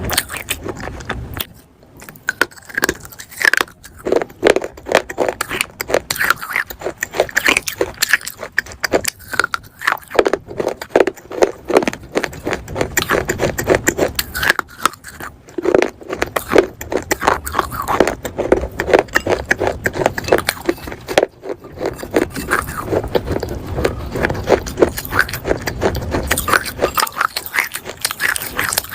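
Close-miked crunching as a person bites and chews pieces of clay pot: a dense run of gritty cracks and scraping grinds, with a couple of short pauses.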